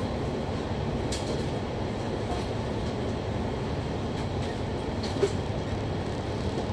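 Steady low rumble of a stationary vehicle and the street traffic around it, heard from its upper deck. A short high click comes about a second in, and a brief sharp knock a little after five seconds.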